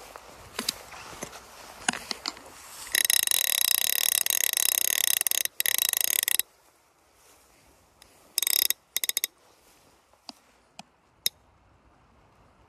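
Fly reel's click-and-pawl ratchet rattling rapidly for about three and a half seconds as line is pulled off or wound in. It breaks off briefly once, then comes back a few seconds later in a longer burst and three very short ones, with a few single clicks after.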